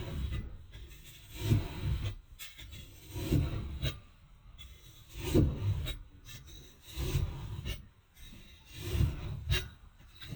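Slow rhythmic scraping strokes, about one every two seconds.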